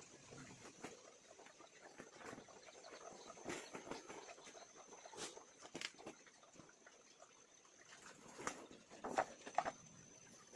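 Chickens moving about in a coop: scattered light taps and scratches, with a few short calls near the end, over a faint steady high hum.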